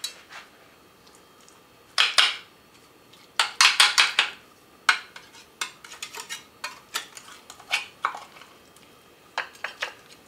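A serving utensil clinking and scraping against a glass casserole dish and a ceramic plate as portions are dished up: scattered clinks, with the busiest run of scraping a few seconds in.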